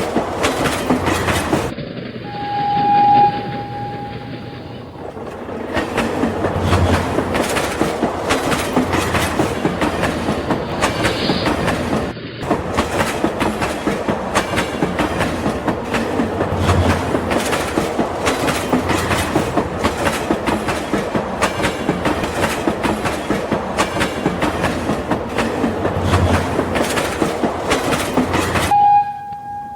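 Toy train running: dense, rapid clicking of the wheels on the track, with a short steady horn beep about two seconds in and again near the end.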